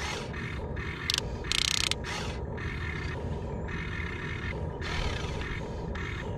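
Huina 1592 RC excavator's electric arm motors and metal gears whirring in several short spells as the boom and bucket move, over a steady low rumble.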